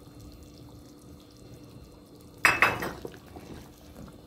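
A stainless-steel ladle in a pot of thick soup clanks loudly against the stainless-steel pot once, about two and a half seconds in, with a brief metallic ring. A few lighter knocks follow.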